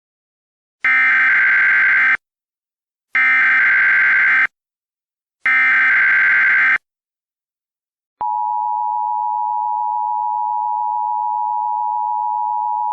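Emergency Alert System SAME header: three identical bursts of shrill digital data warble, each a little over a second long. After a short gap comes the steady EAS attention tone, held for about five seconds, signalling the start of a new alert.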